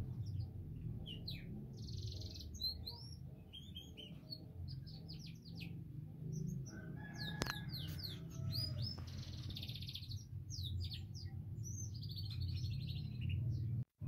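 Persian frilled canary singing: a varied run of quick chirps and rising and falling whistled notes, broken by a few buzzy trills, over a low steady rumble. There is a sharp click about halfway through.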